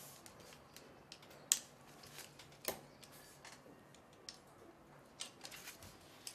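Faint clicks and taps of a metal hex key working the small screws of a gimbal frame's clamp blocks, loosening them so a tube will slide in. Two sharper clicks stand out, about a second and a half in and just under three seconds in.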